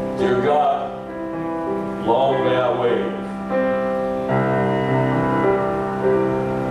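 A man singing a patriotic song over sustained keyboard chords, his voice wavering with vibrato; a new held chord comes in about four seconds in.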